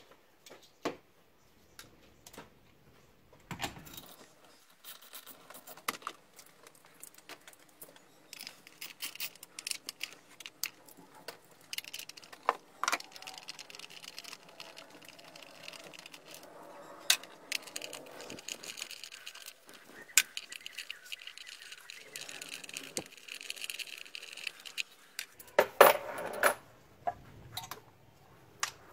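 Hand tools and small metal parts clinking and rattling as the coil pack's 8 mm bolts are undone in the engine bay, with long stretches of rapid ticking and a cluster of louder knocks near the end.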